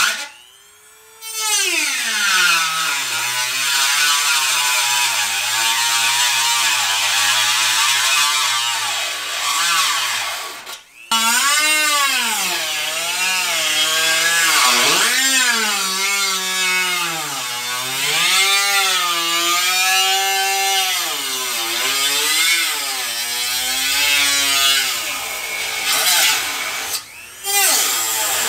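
Corded rotary tool grinding into the steel fender sheet metal, its motor whine sagging in pitch as the bit bites and rising again as pressure eases. It spins up again about a second in, stops briefly partway through, and runs in short bursts near the end.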